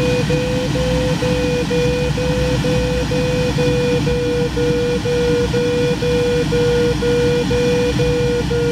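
Glider's audio variometer sounding a mid-pitched tone chopped by short gaps a few times a second, the beeping that signals the glider is climbing in lift. It plays over a steady rush of airflow noise in the cockpit.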